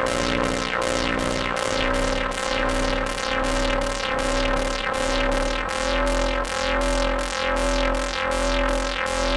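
Electronic synthesizer music with a steady beat of about four pulses a second over a held bass line.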